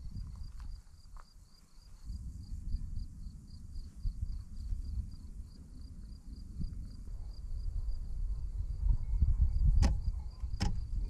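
Crickets chirping in a steady fast pulse, about four chirps a second, over a low rumble that swells towards the end. Two sharp clicks come near the end, about a second apart.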